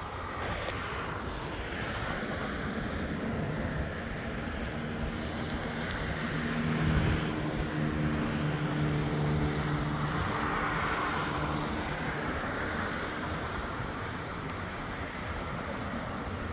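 Fokker 50 twin turboprop engines running, a steady drone with a low hum that swells about a third of the way in and fades again after the middle.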